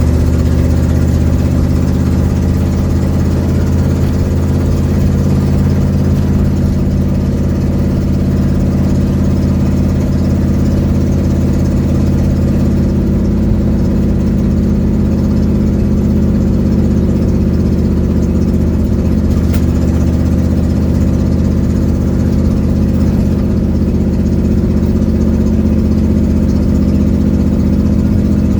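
A 1972 Ford Mustang's engine running steadily, heard from inside the cabin, with the loud exhaust note of a leaking exhaust.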